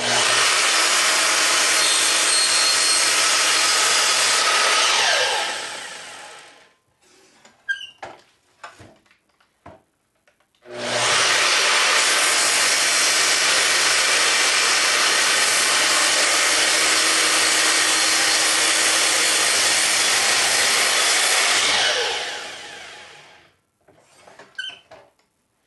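Makita miter saw run twice, its motor running and the blade cutting through a clamped bundle of small wood pieces in a gang cut: a first run of about five seconds, a second one about twice as long. Each time the trigger is released the blade winds down with a falling whine, and a few light knocks follow each cut.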